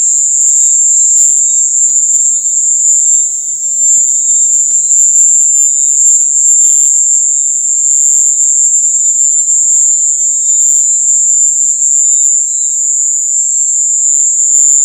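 Cuban tree frog giving a loud, steady, shrill screech that cuts off suddenly near the end.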